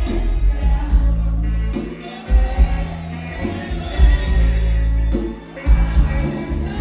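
Live norteño band music with singing over a heavy bass line that plays in short phrases with brief breaks.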